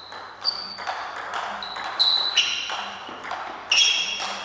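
Table tennis rally: the ball clicking back and forth off the players' bats and the table, a quick irregular series of sharp pings, each with a short ring.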